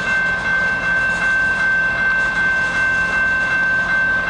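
Railway level-crossing warning bell ringing steadily at about three strikes a second, with a low rumble of the slow-moving freight train beneath.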